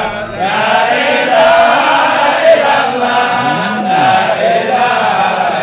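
Men's voices singing an unaccompanied Islamic devotional chant (dhikr) in long, drawn-out, wavering lines.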